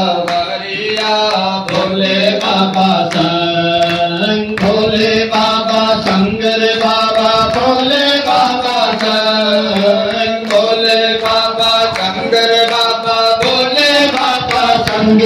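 Devotional Hindu music for Shiva: a melodic line sung or played over a steady low drone, with frequent percussion strikes.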